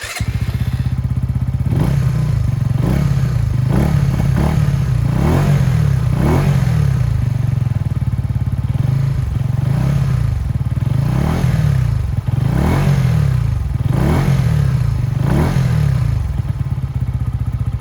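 Benelli TNT 125 single-cylinder four-stroke engine running through a Scorpion aftermarket exhaust with its baffle fitted. The throttle is blipped about a dozen times in quick succession, each rev rising and falling back to idle.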